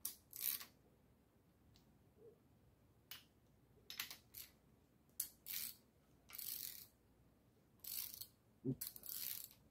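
Ratchet wrench clicking in short, faint bursts, about ten of them with pauses between, as the rocker-arm adjusting nuts on a V8 with hydraulic lifters are turned to set the valve lash.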